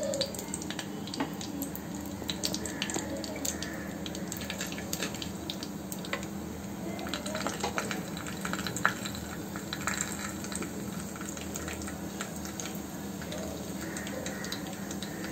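Mustard seeds and urad dal frying in hot oil in an earthenware pot: a steady sizzle broken by many scattered crackles and pops as the seeds splutter. This is the tempering stage, and the spluttering is the cue that it is ready for the next ingredient.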